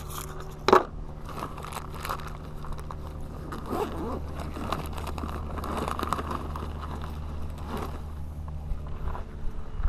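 A nylon backpack being handled and rummaged through, with rustling, scraping and crinkling, after a sharp knock just under a second in. A steady low hum runs underneath and stops shortly before the end.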